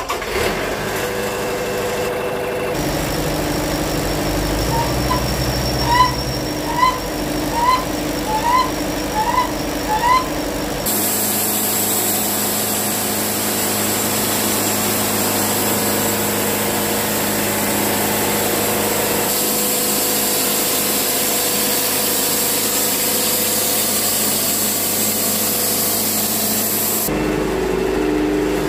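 Wood-Mizer portable band sawmill running. Its engine hums steadily, with six short rising squeaks a little under a second apart about six seconds in. From about eleven seconds the band blade cuts through a dead red oak log, a steady bright hissing cut lasting about sixteen seconds that stops shortly before the end.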